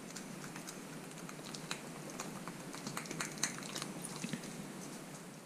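Fillet knife cutting a burbot's cheek meat out of its head: quiet, irregular small clicks and crackles as the blade works through skin and bone against a wooden cutting board.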